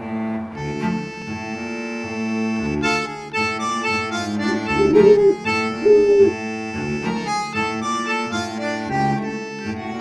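Background music: a sustained low drone under a slow, changing melody, with two brief, louder notes about halfway through.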